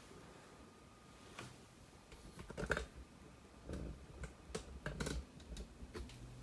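ASUS X501A laptop keyboard being typed on as a password is entered: a run of faint, irregularly spaced keystrokes that starts about a second and a half in.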